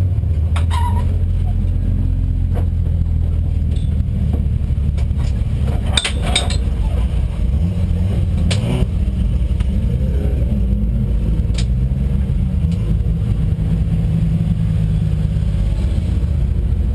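Ford Sierra RS500 Cosworth's turbocharged four-cylinder engine heard from inside the race car's cabin, running at a steady, low drone with no gear changes, held in fifth gear because the clutch cable has broken. A few brief rattles from the cabin cut in about six and eight and a half seconds in.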